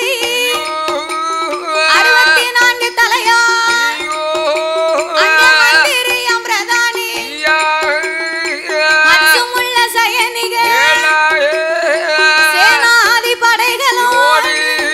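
Villupattu folk ensemble music: a melody with sliding, ornamented pitches over a steady drone, with percussion strokes.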